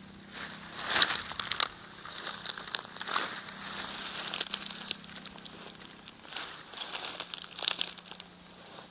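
Footsteps pushing through dense undergrowth, crunching and crackling dry leaves and brush underfoot in an irregular run of steps.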